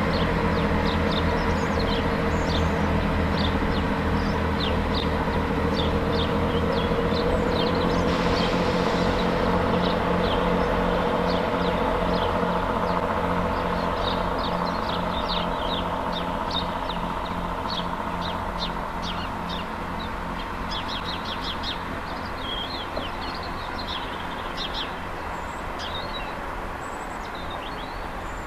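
Class 158 diesel multiple unit's underfloor diesel engines running as the train moves away, the engine note fading steadily. Small birds chirp throughout.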